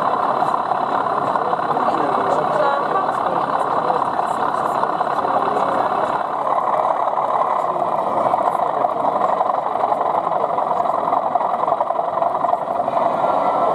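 Diesel engine sound of a sound-fitted BR Class 37 model locomotive, running steadily from its onboard speaker, with crowd chatter underneath.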